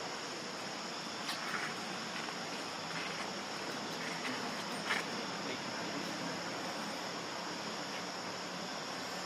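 Steady insect chorus, a constant high-pitched drone, with a couple of faint short knocks about a second in and about five seconds in.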